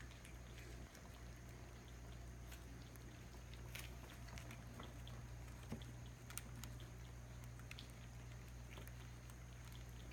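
Faint, scattered light taps and rustles of kittens scampering and batting toys on paper puppy pads, over a steady low hum.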